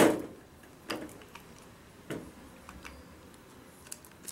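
Separate plastic-and-metal clicks from handling a KNIPEX insulated 1/2-inch ratchet wrench and its socket parts: one sharp click with a short ring, then two softer clicks about a second apart, and a faint tick near the end.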